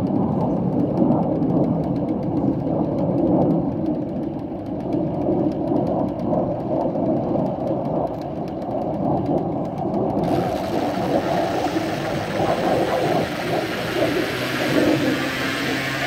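Vittorazi Moster 185 single-cylinder two-stroke paramotor engine running steadily on a trike, heard from a distance across open snow. About ten seconds in, a brighter hiss suddenly joins it.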